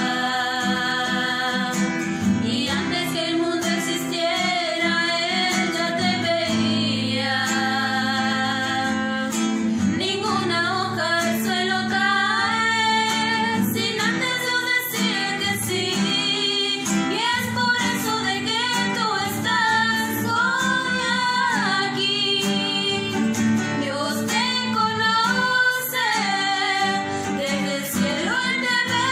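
Two women singing a Spanish-language song together, accompanied by a strummed acoustic guitar.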